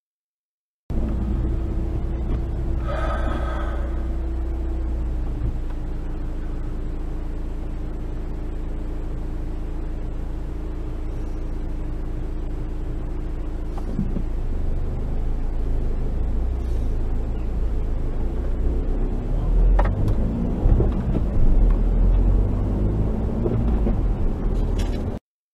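Dash-cam recording of a car's engine and road noise from inside the cabin, a steady low rumble with a faint hum. There is a brief pitched tone about three seconds in, the sound changes about halfway through, and a few louder knocks come near the end.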